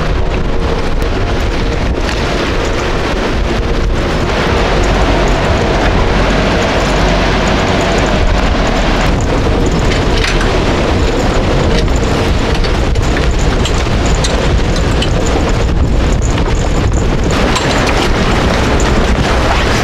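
Gale-force storm wind of around 40 knots buffeting the camera microphone: a loud, steady rush with a heavy low rumble and no letup.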